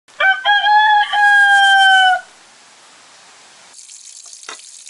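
A rooster crowing once, a cock-a-doodle-doo of a few short rising notes and a long, slowly falling last note. About three and a half seconds in, a tap starts running quietly into a sink over a frying pan, with one light knock.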